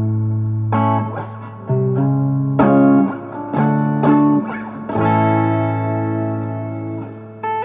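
Vermona Regent 300 K electronic keyboard playing chords over a held low bass note. The chords have a plucked, guitar-like tone that starts sharply and fades, and a longer chord is held from about two-thirds of the way in.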